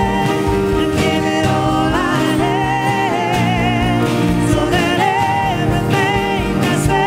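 A live contemporary Christian worship band playing, with grand piano, drum kit, acoustic and electric guitars and bass, while a woman sings a high melody with vibrato over it.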